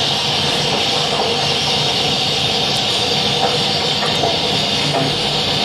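Steady, even hiss and rumble of a military Humvee running, heard through the playback of a seat-belt demonstration video.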